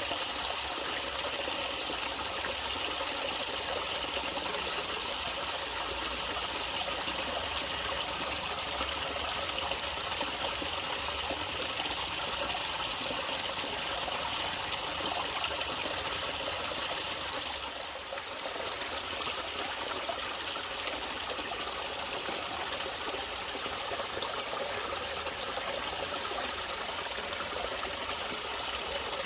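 Natural water trickling and flowing steadily, like a small stream, with a brief dip in level about two-thirds of the way through.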